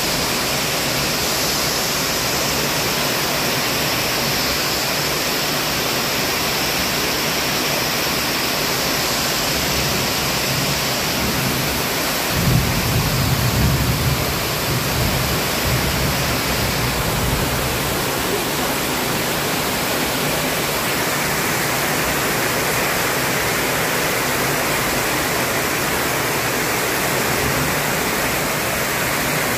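Heavy tropical downpour falling steadily on foliage and a sheet-metal roof. A low rumble of thunder breaks in about twelve seconds in and dies away over a few seconds.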